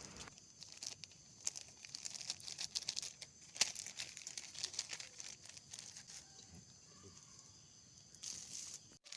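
Large plastic ice-bag sheet crinkling and crackling as it is handled around a branch and pressed onto double-sided tape: faint, irregular crackles, thickest in the first few seconds.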